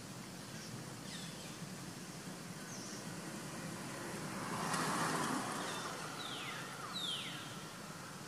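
Outdoor background with a steady low hum, swelling into the broad noise of a passing vehicle about five seconds in, then two quick high calls that slide downward near the end.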